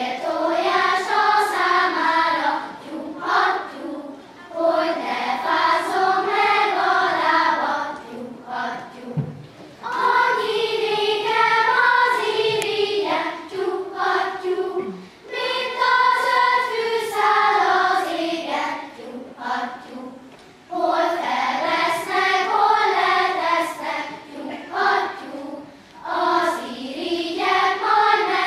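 Children's choir singing, phrase after phrase of about four seconds with short breaks for breath between them.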